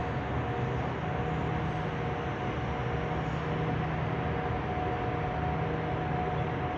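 Continuous mechanical drone: a steady low hum and a constant mid-pitched whine over an even rushing noise, unchanging throughout. The recorder attributes it to motor-driven machinery running at the hospital.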